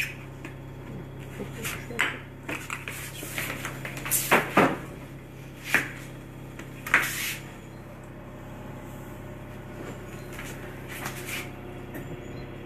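Kitchen handling sounds while an egg is separated: scattered light knocks and clinks of small ceramic dishes on a countertop, most of them in the first seven seconds, over a steady low hum.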